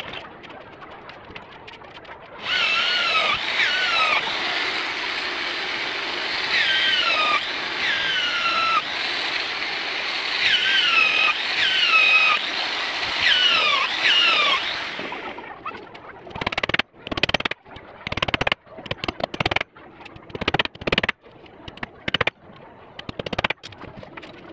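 Power drill running in long stretches against the wooden frame, its motor pitch dipping over and over as it loads up. Then a string of sharp, irregular wooden knocks and clatters.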